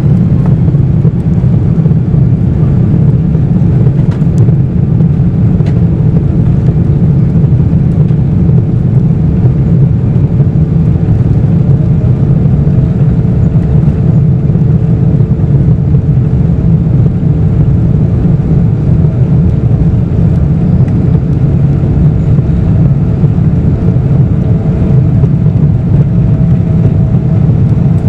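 Steady, loud cabin rumble of a Boeing 777-200ER, its Rolls-Royce Trent 895 engines and airflow heard from inside the cabin, with a faint steady hum that comes in about three seconds in.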